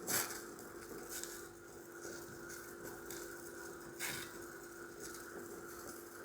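Grapes boiling in a pot of water: faint bubbling with a few soft pops, over a steady hum.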